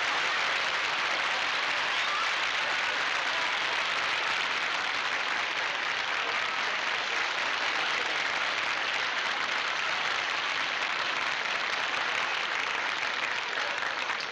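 Studio audience applauding steadily for a long stretch, greeting a character's entrance in a sitcom taped before a live audience.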